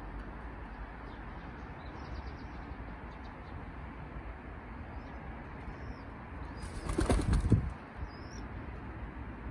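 A pigeon's wings flapping in a short, loud flurry about seven seconds in, over a steady background hiss with a few faint, high chirps of small birds.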